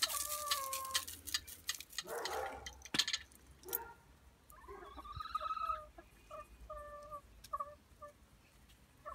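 Hens making soft, drawn-out calls and then short repeated notes while feeding on scattered oats. A rustle and a few sharp clicks come in the first few seconds.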